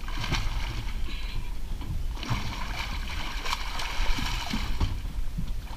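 A large tarpon thrashing at the surface right beside a boat's hull, splashing water, briefly near the start and then heavily from about two seconds in until near the end, over a steady low rumble.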